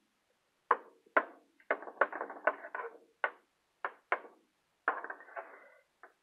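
Irregular sharp knocks and clatters, about a dozen, some ringing briefly, from kitchen things being handled around a metal baking pan on the stovetop, with a rattling scrape about five seconds in.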